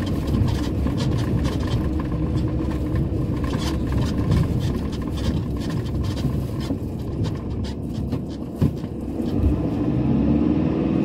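Van engine running as it drives slowly over rutted, packed snow and ice, with tyre noise and frequent small rattles and knocks from the bumps; a single sharper knock about eight and a half seconds in.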